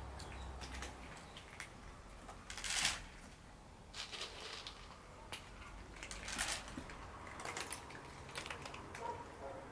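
A cat eating dry food: irregular small crunches and clicks as it chews. A louder, brief rustling crunch comes about three seconds in, and more come later.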